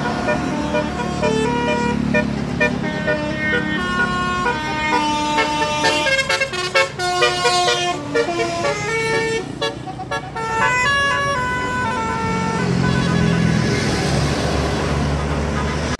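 Indonesian bus 'telolet' multi-tone horn playing a melody of short stepped notes, followed near the end by the low rumble of the bus engine.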